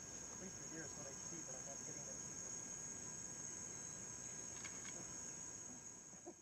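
Steady, high-pitched insect trilling with faint knocks and rustles underneath; the sound fades out at the very end.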